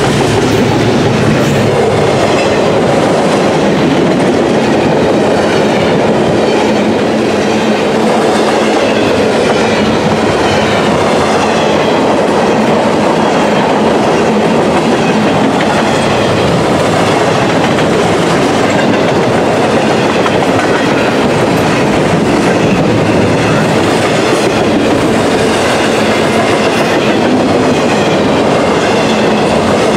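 Intermodal freight train of double-stack container well cars rolling past at close range: steady, loud noise of steel wheels on the rails.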